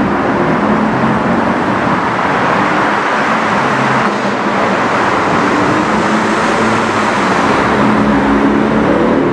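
BMW M4 GTS's twin-turbo straight-six driving on the road amid traffic noise, its engine note rising over the last few seconds as it pulls away.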